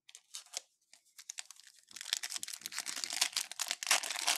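Plastic-foil wrapper of a trading card pack being handled and torn open. It starts as a few scattered crackles, then crinkles continuously from about two seconds in.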